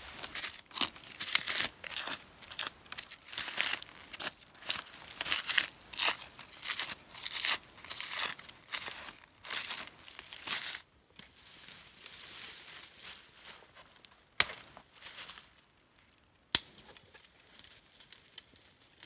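Dry twigs being snapped and torn off trees and gathered for fire kindling: about ten seconds of rapid, irregular tearing and crackling, then quieter rustling with two sharp snaps near the end.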